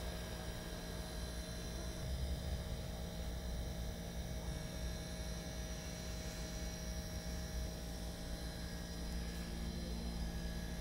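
Steady low hum with a few faint steady higher tones above it, without knocks or changes.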